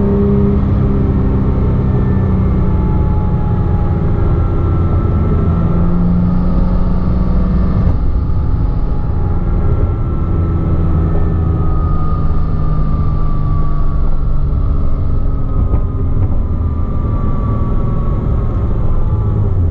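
2007 Porsche Cayman S flat-six engine heard from inside the cabin while decelerating in third gear, with a high-pitched whistle over the engine note that falls slowly in pitch as the revs drop. The whine comes from a worn water pump bearing on the accessory belt drive.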